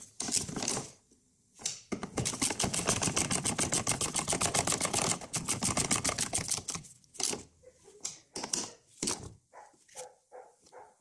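Ratchet wrench clicking as it spins the strut top-mount nuts down, in a long fast run of even clicks, then a few short, slower runs near the end.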